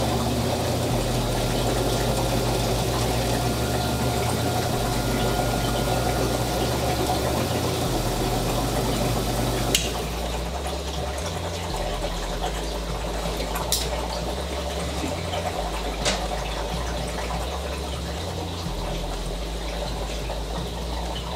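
Gryphon diamond wet band saw running with water in its tray: a steady whirr with watery splashing while the blade is tested to see if it runs true. About ten seconds in the steady hum drops away and the sound changes, and a few sharp clicks follow.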